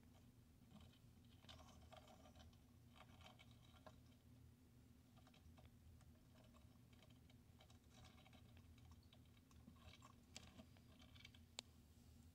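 Near silence with faint, scattered clicking and scratching from a hermit crab's legs and shell moving against the gravel and the other shells, in several short clusters, over a low steady hum. One sharper click sounds near the end.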